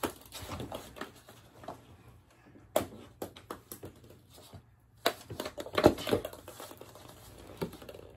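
Small plastic balls bouncing on a hardwood floor, with scattered sharp knocks and scuffs of people moving about; the loudest knock comes about six seconds in.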